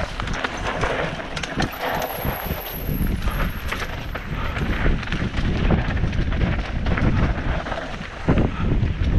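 Wind rushing over a GoPro Hero 7 Silver's microphone while riding a mountain bike down a dry dirt singletrack, with the tyres rumbling over the dirt and the bike rattling and knocking over rough ground.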